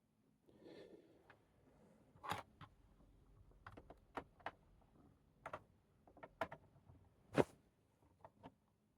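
Scattered small clicks and knocks of plastic plugs and cables being handled and connected, with a soft rustle about a second in; the loudest knock comes near the end.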